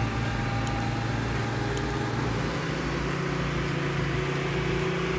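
An engine running steadily, its low hum shifting slightly in pitch about halfway through.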